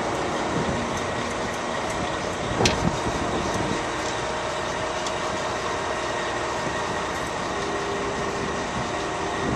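Concrete mixer truck's diesel engine idling steadily, with one sharp click about two and a half seconds in.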